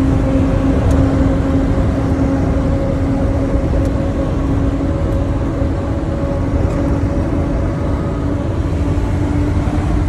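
Agricultural-tread tires howling on pavement as a 1958 Ford F100 pickup cruises, heard from inside the cab. A steady pitched hum sits over the low rumble of the road and the truck's 272 Y-block V8.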